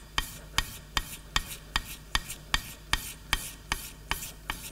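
A steel chisel's bevel rubbed back and forth on wet abrasive paper laid on a glass plate, sharpening the edge. The strokes come at an even pace of about two and a half a second.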